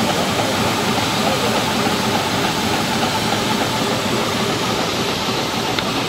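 Agrose trailed orchard mistblower's 75 cm axial fan running at full blast, throwing spray mist, with the tractor engine that drives it running underneath. The result is a loud, steady rushing noise that does not let up.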